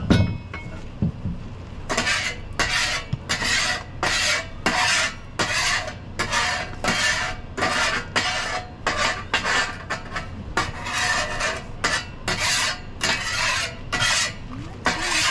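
A scraper being dragged across the flat top of a griddle in short rasping strokes, about two a second, after a loud clank right at the start.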